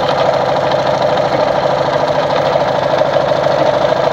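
Brother Pacesetter ZU2-605 electric sewing machine running steadily at speed, its needle stroking rapidly and evenly as it sews a decorative stitch through denim.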